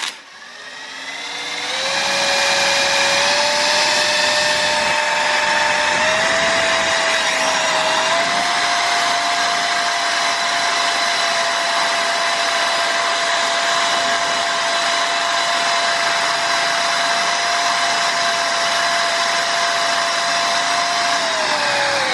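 Cordless impact driver spinning a Pelton wheel's generator motor under a heater load, a steady motor whine. The pitch climbs in small steps over the first several seconds as the driver is brought up gradually, holds steady while the generator puts out about 50 watts, and winds down near the end.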